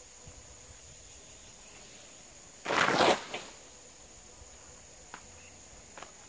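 A weighted cast net landing on a plastic ground sheet: one short rustling crash of lead sinkers and mesh hitting the sheet, about half a second long, a little under three seconds in, followed by a few faint clicks.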